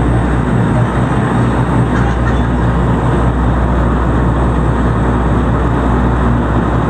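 Tour boat's engine running steadily, a loud constant low drone with a hum beneath it.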